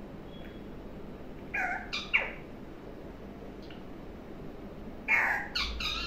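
Green parakeet calling: a short run of three harsh calls about a second and a half in, and a louder run near the end, each call sliding down in pitch.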